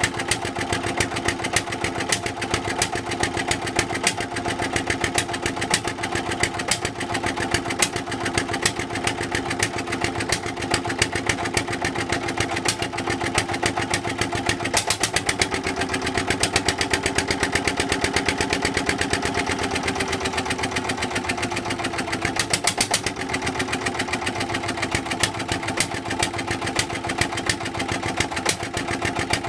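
Petter AVA1 single-cylinder air-cooled diesel stationary engine running with an even beat. About halfway through its speed rises a little, holds for several seconds, then drops back to where it was.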